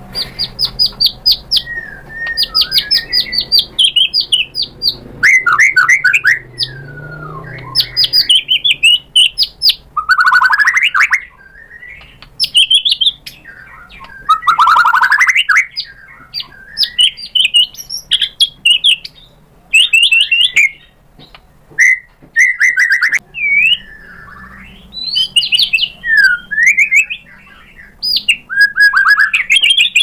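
White-rumped shama singing a long, varied song: fast trills of repeated sharp notes, whistles that slide up and down, and loud phrases broken by short pauses.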